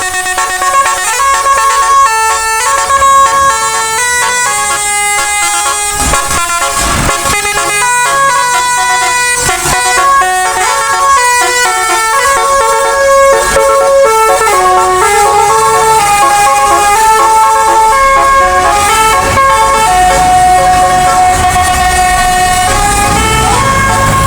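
Bus musical air horn (telolet basuri) playing a tune of stepped, held notes with several tones sounding at once. A low hum comes in near the end.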